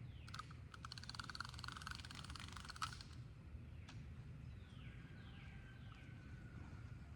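Birds calling outdoors: a rapid, dry rattling chatter for the first three seconds, then a few short calls that slide downward in pitch over a faint held whistle, with a low steady rumble of wind and open-air noise beneath.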